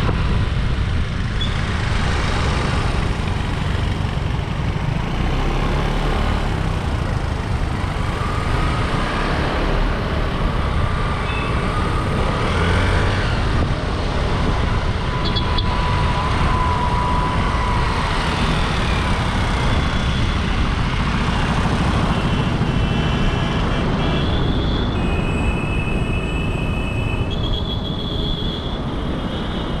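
Wind rushing over the microphone and road noise while riding an Aprilia SR150 scooter at steady speed, with a few short high tones near the end.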